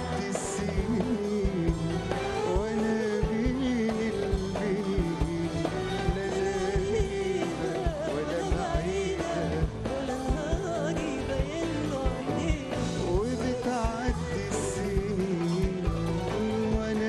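Live Arabic pop duet: a male and a female singer trading a wavering, ornamented melody over an orchestra and band with a steady beat.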